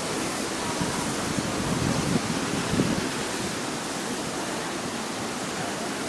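Steady rush of the river flowing over the rocks below Tegenungan Waterfall, as an even noise, with a few brief low bumps about two to three seconds in.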